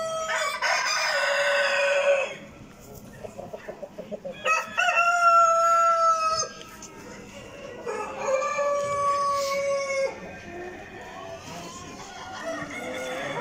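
Roosters crowing one after another in a hall full of show chickens. One long crow ends about two seconds in, two more full crows follow, each about two seconds long, and another begins near the end.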